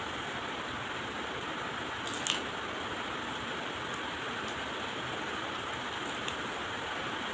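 Cooked crab shell cracked and picked apart by hand: a sharp crack a little over two seconds in and a smaller one near the end, over a steady hiss.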